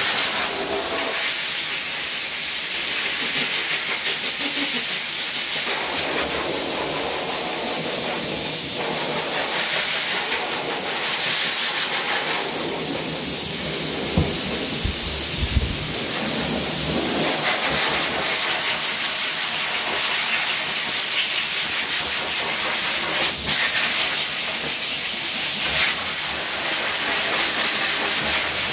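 Dog grooming force dryer blowing air through its hose onto a dog's wet coat: a loud, steady rushing hiss whose tone shifts every few seconds as the nozzle is moved over the dog.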